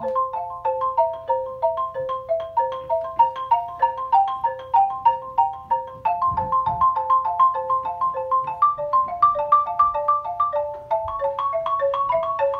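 Xylophone played with two mallets: an etude of quick, even broken-chord figures, about five notes a second, with the top notes climbing higher after about nine seconds.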